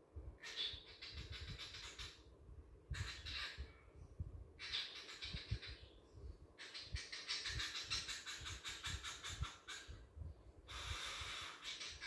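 Cockatiel making raspy, hissing chatter in several stretches of one to three seconds, broken by short pauses.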